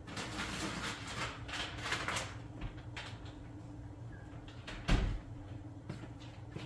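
Rustling and knocking of things being handled in a kitchen, busiest in the first two seconds, with one heavy thump about five seconds in, over a low steady hum.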